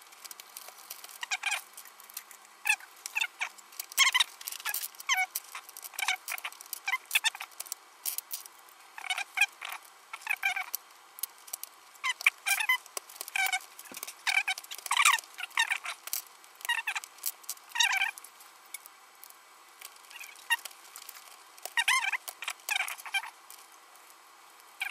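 Plastic pieces of a Lingyun speedcube, fitted with Lubix torpedoes, clicking and snapping into place as the cube is reassembled by hand. The clicks are short and irregular, several a second at times.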